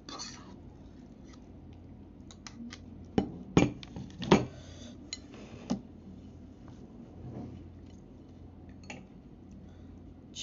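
A metal fork clinking and knocking against dishes, with a few sharp knocks clustered about three to six seconds in and lighter clicks scattered around them.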